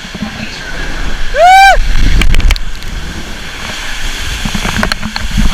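Wind buffeting the microphone in heavy low rumbles, with one brief high whoop that rises and falls about one and a half seconds in, and a few sharp clicks.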